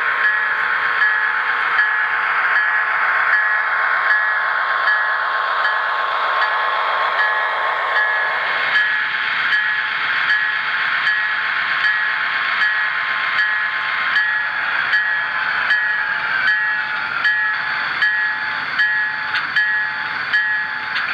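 Onboard sound of a model Amtrak F40 diesel locomotive, played through a small speaker: a steady engine hiss with the locomotive bell ringing about twice a second as the train rolls into the station.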